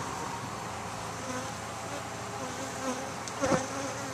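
Italian honey bees buzzing steadily around an opened top-bar hive, stirred up by the inspection. A brief knock comes about three and a half seconds in, likely from a wooden top bar.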